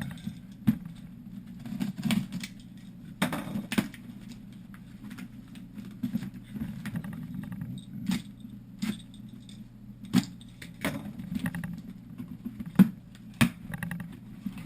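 A cardboard shipping box being handled and opened: scattered taps, clicks and rustles of cardboard and packaging, over a steady low hum.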